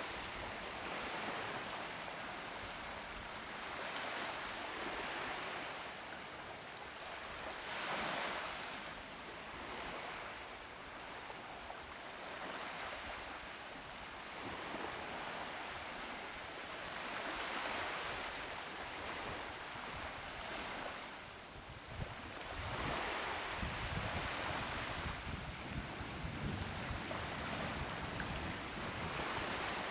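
Small sea waves washing onto a sandy beach, the surf rising and falling every few seconds. Wind buffets the microphone, mostly in the last third.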